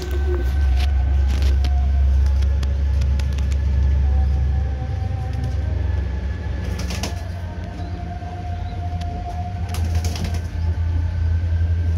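Domestic pigeons in a coop flapping their wings and cooing, with sharp wing claps twice, about 7 and 10 seconds in. A heavy low rumble sits under everything, and behind it a distant call to prayer (ezan) sung in long held notes that shift in pitch.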